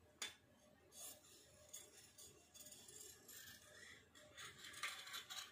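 Faint scissors snipping through cotton cloth, a sharp click near the start and then irregular short cuts with rustling of the fabric.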